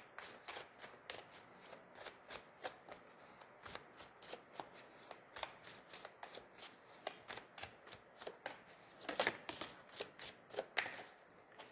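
A deck of tarot cards being shuffled by hand: a long run of quick, soft card flicks and slides, with a denser flurry near the end.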